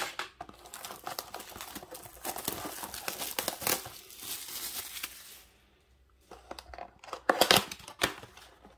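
Clear plastic shrink wrap crinkling as it is torn and peeled off a cardboard trading-card box. After a short pause come a few sharp cardboard clicks and snaps as the box's flaps are pulled open.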